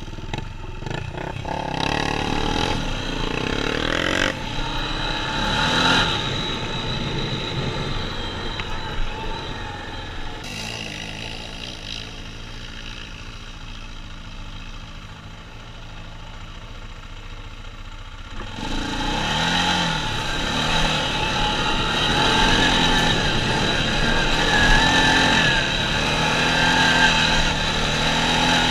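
ATV engine running as it is ridden: revving hard at first, easing to a lower, quieter run in the middle, then revving up again about two-thirds through, its pitch rising and falling with the throttle.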